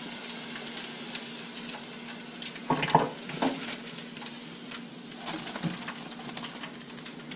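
Hot oil in an electric deep fryer sizzling steadily around breaded gafftopsail catfish pieces, with a few sharp metal clinks about three seconds in as the wire fry basket is lifted and handled, and lighter clinks later on.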